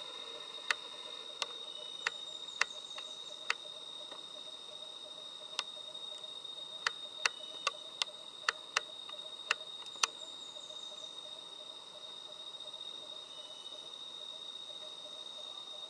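Sharp clicks from a Sony Alpha A580 camera's controls as its exposure is adjusted during recording: about fourteen irregular clicks, bunched in the first ten seconds, over a steady high-pitched tone and faint hiss.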